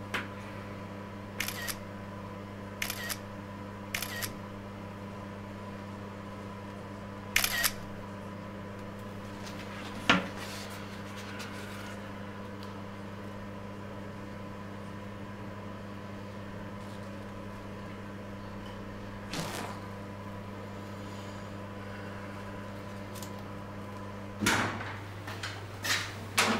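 Smartphone camera shutter clicks, five of them over the first eight seconds, over a steady electrical hum. A single sharp click about ten seconds in, and a few louder knocks near the end.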